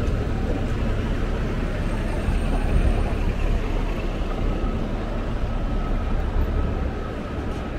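Steady city street traffic heard from a moving bicycle, with a heavy, even rumble of wind on the microphone.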